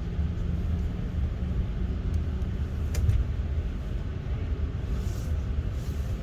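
Steady low rumble of a double-deck Sydney electric train, heard from inside the carriage, with one sharp click about three seconds in.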